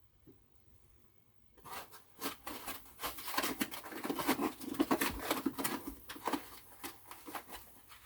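Packaging rustling and crinkling as kit parts are handled, starting about a second and a half in and going on as a dense, irregular crackle.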